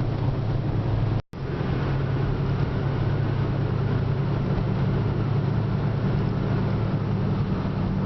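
Steady in-cabin drone of a 4x4 driving in four-wheel drive: low engine hum with road and wind noise. It drops out completely for a moment about a second in, then carries on unchanged.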